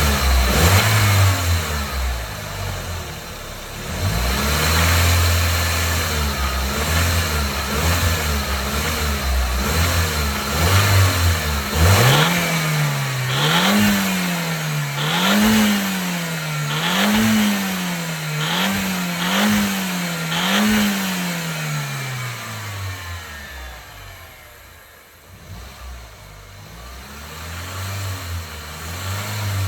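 Audi S3 8L's 1.8-litre turbocharged four-cylinder engine idling, then revved in about six quick blips around the middle before dropping back to idle. Sharp clicks come through as the revs change: the rattle the owner cannot identify.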